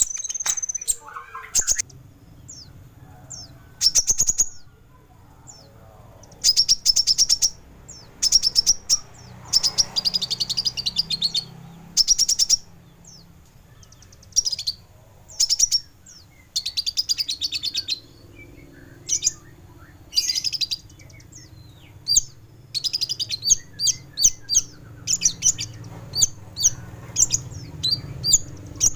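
Kolibri Ninja sunbird singing: short runs of rapid, sharp, very high chirps, repeated every second or two with brief pauses, over a faint low hum.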